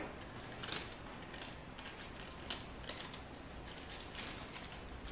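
Faint, scattered taps and rustles of a small cardboard gift box and its white paper wrapping being handled and opened by hand.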